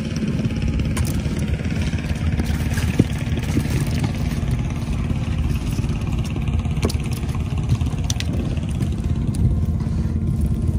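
An engine running steadily with an even hum, a few sharp knocks over it, the loudest about three seconds in.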